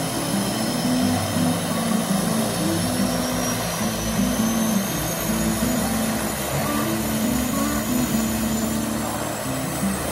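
The two turboprop engines of a de Havilland Canada Twin Otter floatplane running as it taxis on the water, propellers turning, with background music playing over the engine sound.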